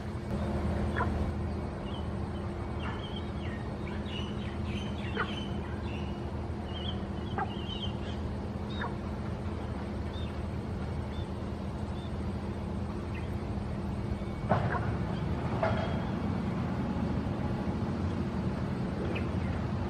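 Scattered short bird calls and peeps over a steady low background hum, with a quick run of high chirps from about three to nine seconds in. A louder rush of noise comes in about fourteen seconds in.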